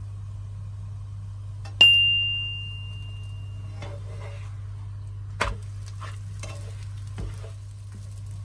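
Flatbread frying in a nonstick pan with a faint sizzle, handled with a spatula and turned over. A sharp clink about two seconds in rings on for over a second, and two short knocks follow later, over a steady low hum.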